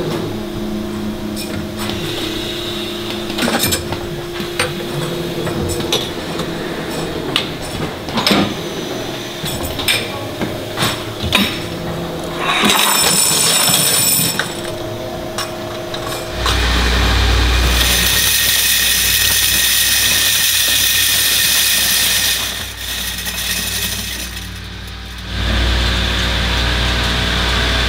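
Oil-filter production machinery running, with a steady hum and frequent sharp clinks of stamped metal filter end plates knocking together and sliding along the line. From about halfway a louder, steady machine noise with a deep rumble takes over; it drops briefly near the end, then returns.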